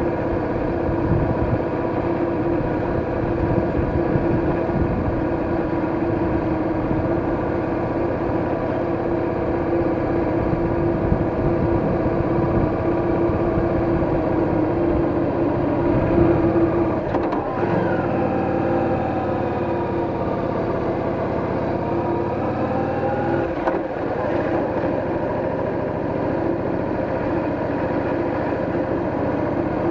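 Cruiser motorcycle engine running steadily at low road speed, heard up close from the bike. The engine note briefly dips and changes about 17 seconds in and again near 24 seconds.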